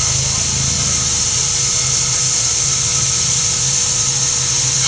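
NSWGR 30 class steam locomotive 3016 standing with steam hissing steadily, over a low throbbing mechanical beat and a thin steady whine.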